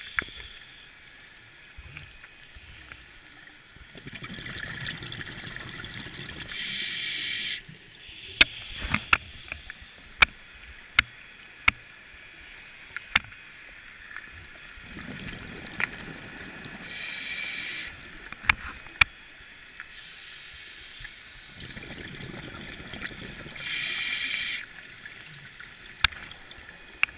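Underwater scuba breathing through a regulator: three slow breath cycles, each a long inhale followed by a loud burst of exhaled bubbles. Sharp clicks are heard between the breaths.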